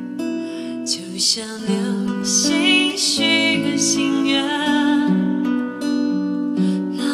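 Acoustic guitar strummed as accompaniment while a woman sings a slow Mandarin ballad in long, wavering held notes.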